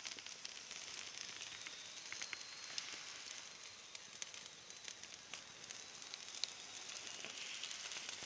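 Dried sesame-mackerel fillet sizzling on a wire grill over charcoal embers: a faint, steady hiss with scattered small pops. The fish is charred black.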